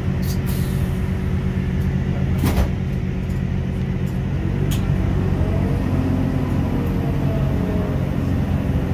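Diesel multiple unit heard from on board while under way: a steady low engine drone, a few sharp clicks or knocks (the loudest about two and a half seconds in), and a whine that rises and then eases off in the second half.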